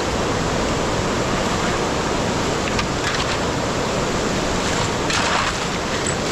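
Steady, even noise of water, with brief louder rushes about three and five seconds in.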